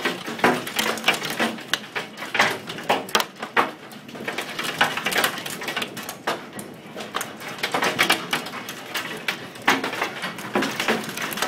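Hailstones pelting hard surfaces in a heavy hailstorm: a dense, irregular clatter of sharp impacts, with harder strikes standing out every second or so.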